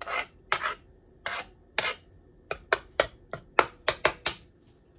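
A metal spoon scraping in short strokes while greasing a non-stick sandwich maker with ghee: four spaced strokes, then a quicker run of about eight.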